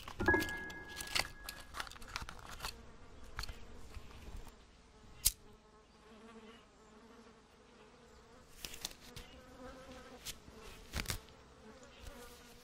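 An insect buzzing, its pitch wavering, clearest in the second half. Scattered sharp clicks and rustles of handling run through it, the loudest click about five seconds in.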